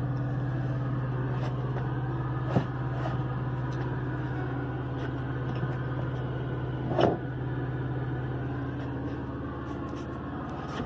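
Steady low drone inside a semi truck's cab, with two brief knocks about two and a half and seven seconds in.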